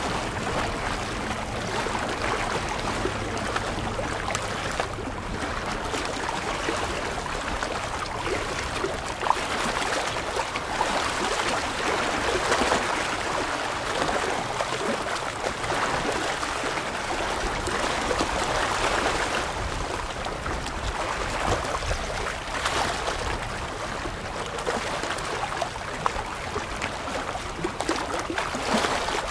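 Small waves lapping and splashing against shoreline rocks, swelling and easing every few seconds.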